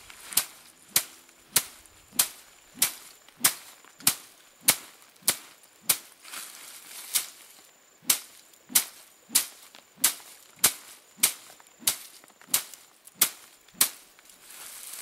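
Hand threshing: dried crop stalks on a tarp are beaten, giving sharp cracking strikes in a steady beat of about three every two seconds. There is a short break with a little swishing about halfway through.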